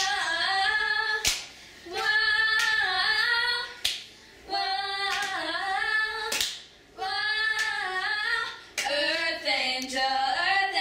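Girls singing a song together in phrases of a second or two with short breaths between them, with a sharp clap in some of the gaps.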